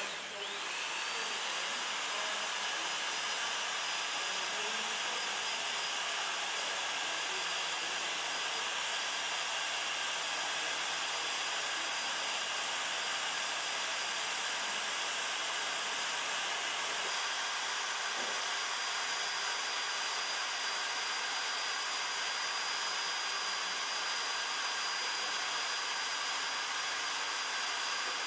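Weldy EX2 handheld plastic extrusion welder running steadily as it lays a bead on plastic sheet: the even blowing of its hot-air blower with a steady high whine. The whine rises briefly in pitch right at the start and then holds.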